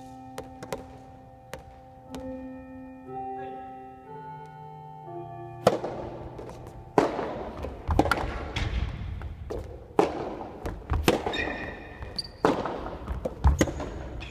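A tune of steady chime-like notes, like mallet music, plays for the first five or six seconds. Then a rapid run of sharp knocks and thumps takes over, loudest from about seven seconds in.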